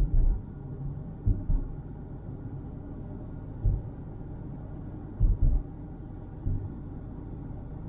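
A moving car heard through a dashcam: a steady low road rumble, broken by about eight dull low thumps at irregular moments.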